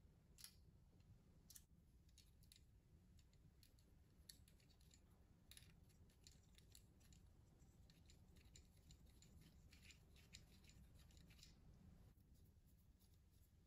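Faint, irregular small clicks and scratches of fingers pressing red wires into the black plastic frame of a paper film projector kit and handling its parts, over quiet room tone. The clicking thins out near the end.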